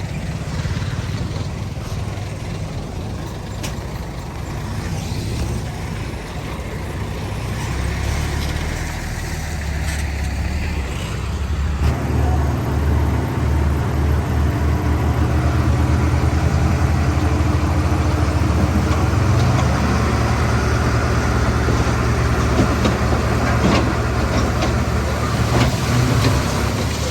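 Heavy diesel engine of earthmoving machinery running steadily. About halfway through it gets louder and takes on a deep, fast pulse, as if working harder under load.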